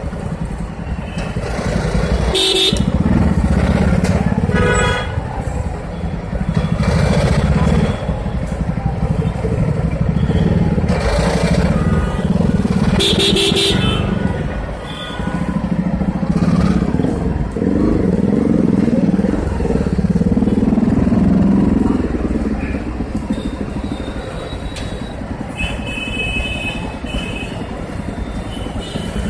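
Bajaj Pulsar 200NS single-cylinder motorcycle engine running in slow stop-and-go traffic, its sound rising and falling as it creeps forward. Other vehicles' horns honk several times around it.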